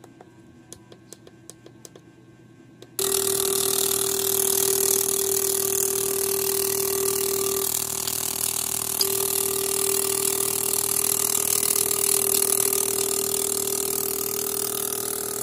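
Fuel injector test-and-cleaning machine switching on about three seconds in and running steadily: a constant hum with a hiss as the injectors spray. Faint ticking is heard before it starts.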